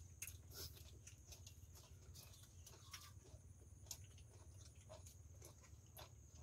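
Near silence: a faint low rumble with a few soft, scattered clicks.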